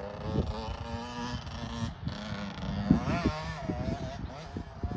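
Husqvarna TC 85's 85 cc two-stroke engine revving unevenly up and down as the dirt bike is ridden, bogging: a symptom of its cracked reed petals.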